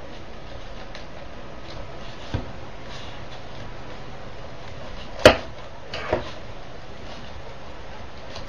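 A NAO robot striking a wooden plank with a small hammer: a light knock a couple of seconds in, a sharp hit a little past halfway followed by a weaker one, and another hard hit at the very end, over a steady hiss.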